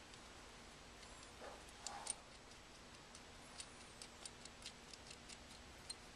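Near silence with faint, scattered light clicks and taps as the outrigger fittings are handled against the folding kayak's frame.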